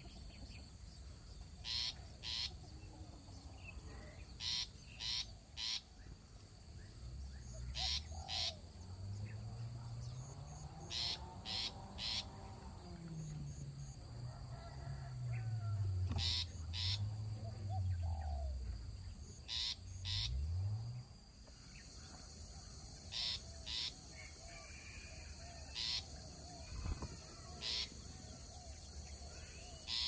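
Short high chirps in twos and threes, repeated every second or two, from nestlings begging in the nest, over a steady high insect drone. In the middle a low hum rises and falls in pitch for several seconds.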